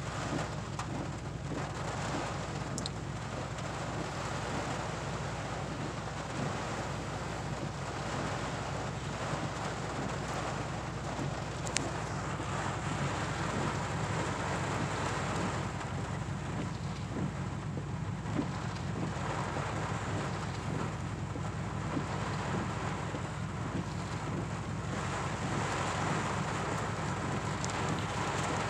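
Rain pattering on a pickup truck's roof and windshield, heard from inside the cab as a steady hiss over a low steady hum, with a few sharp ticks from single drops.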